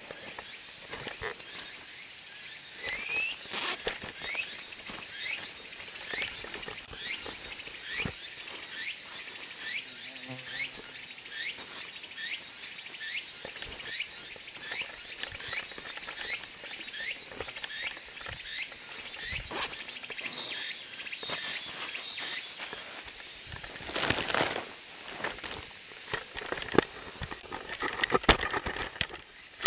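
Footsteps crunching on a dirt trail, about two steps a second, over a steady high drone of insects. A few louder knocks and handling noises come near the end.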